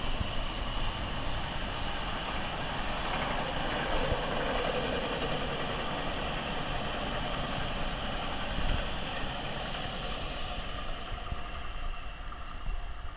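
A train running with a steady mechanical rumble and whine, a little stronger about four seconds in and easing slightly near the end.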